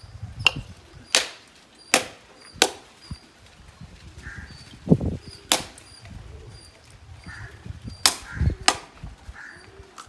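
A knife striking a dried coconut held in the hand to crack open the shell: a series of sharp, irregular knocks, about seven or eight, some in quick pairs.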